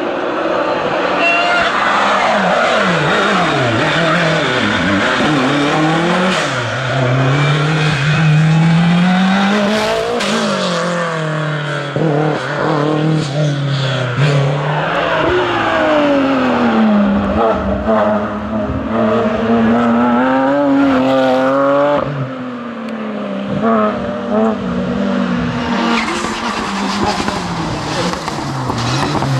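Racing touring car engine at full throttle, its pitch climbing through the gears and dropping repeatedly as it shifts and lifts for corners.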